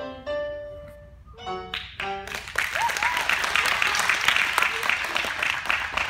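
Instrumental floor-exercise music ends about two seconds in, then a small group applauds, with a brief cheer, at the end of the routine.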